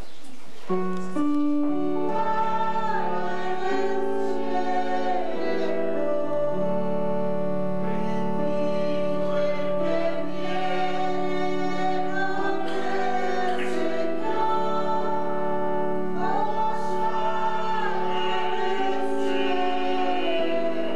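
Church music: sustained organ chords with singing over them, starting abruptly about a second in.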